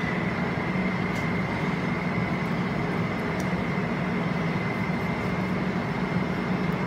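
Steady mechanical hum and whir with a low drone and a faint high whine, unchanging throughout, with a couple of faint light clicks.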